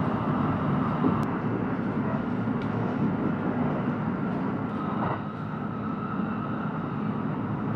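Steady running noise of the Kintetsu Shimakaze express train heard inside the passenger cabin: a low, even rumble with a faint high whine. A light click sounds about a second in.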